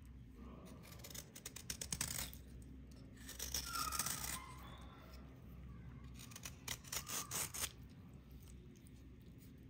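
A hand-held scraper dragged across a brown slab, scraping off a crumbly dried crust in quick rasping strokes. The strokes come in several bursts with short pauses, loudest about four seconds in.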